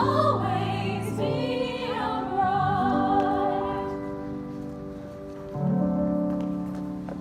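Female ensemble singing a show tune with instrumental accompaniment. The voices hold a note as the number peaks, and the music carries on with a wavering melody, dipping and then rising again near the end.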